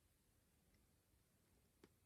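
Near silence, with a single faint click near the end.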